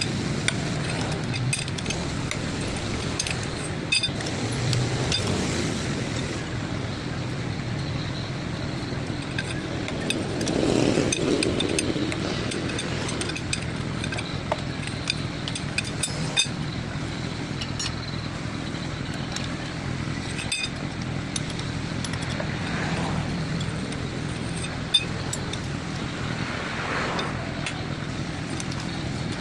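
Scattered metallic clinks and taps of tools and differential gear parts being handled, over a steady background noise.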